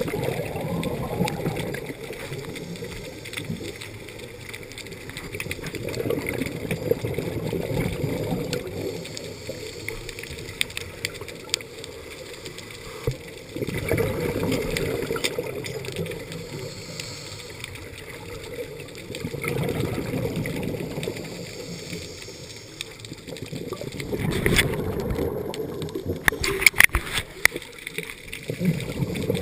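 Scuba diver breathing through a regulator underwater: slow cycles of exhaled bubbles gurgling, swelling and fading every five to eight seconds, heard through the camera's underwater housing. A cluster of sharp clicks comes near the end.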